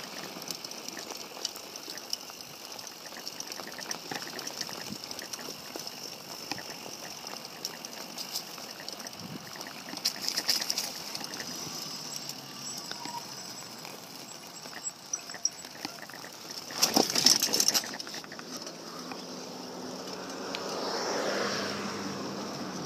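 Mountain bike rolling over a dirt and gravel trail: tyre crunch and small rattles, with a louder burst of clatter about seventeen seconds in. Wind rushes over the microphone near the end.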